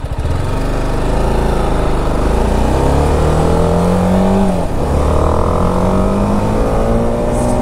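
BMW G310 RR's single-cylinder engine accelerating, its pitch climbing, dropping briefly about halfway through at an upshift, then climbing again, with wind rushing over the helmet-mounted microphone.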